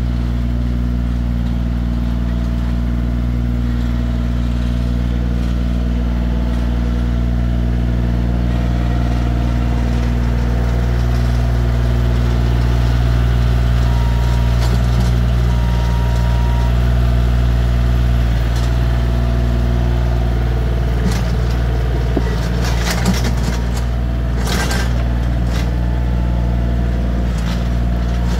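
Bobcat CT2025 compact tractor's diesel engine running steadily under light working load. A cluster of clanks and rattles comes about three quarters of the way through as the tractor works the dirt.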